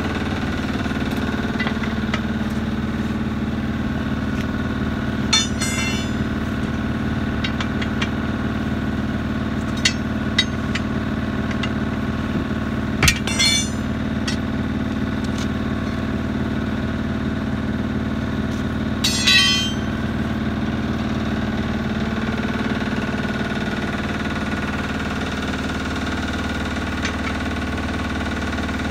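Steady engine drone with a few sharp metal clanks scattered through it: steel tire irons striking a steel 19.5-inch truck wheel as a tire is levered off its rim by hand.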